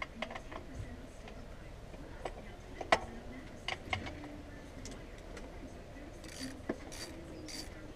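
Light metallic clicks and knocks of hand tools and engine parts being handled in a car's engine bay while an alternator is removed, the loudest about three seconds in. Near the end comes a run of short scraping strokes, about two or three a second.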